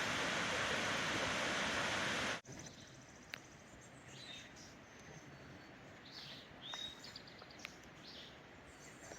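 Steady rush of a waterfall that cuts off abruptly about two seconds in. It gives way to quieter woods with scattered bird chirps and a few faint clicks.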